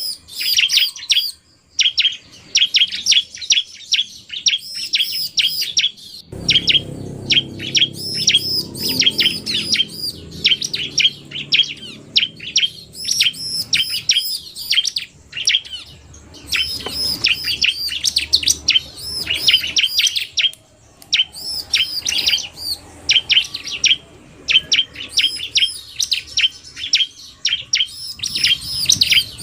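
Bar-winged prinias (ciblek) chirping fast: a dense run of short, sharp high chirps with a few brief pauses, a male's 'narung' song mixed with a female's quick calls.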